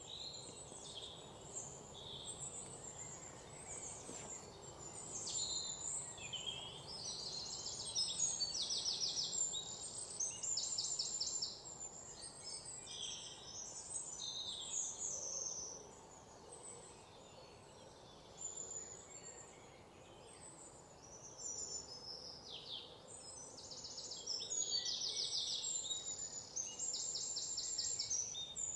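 Small birds chirping, with several rapid, evenly pulsed high trills over faint steady background noise.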